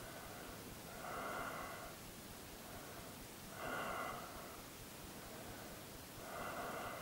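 A man breathing slowly while lying under hypnosis: three audible breaths, each about a second long and coming about every two and a half seconds.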